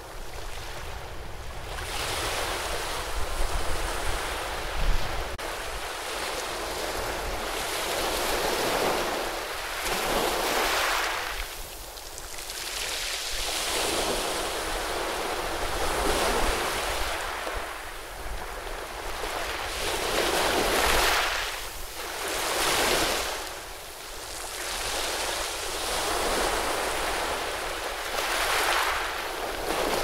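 Ocean surf breaking and washing around rocks, a steady rush that swells and fades every few seconds. Wind rumbles on the microphone in gusts a few seconds in.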